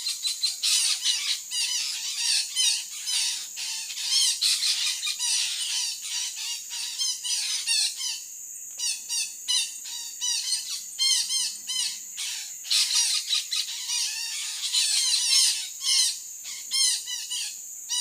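Red-breasted parakeets (betet) squawking: many short harsh calls overlapping without pause.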